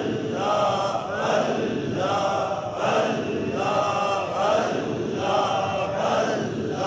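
A group of men chanting a short Sufi dhikr phrase in unison, repeated over and over in a steady rhythm, each repetition swelling and fading.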